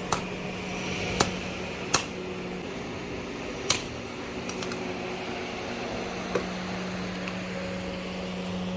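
About five sharp knocks, spaced unevenly, over a steady low hum.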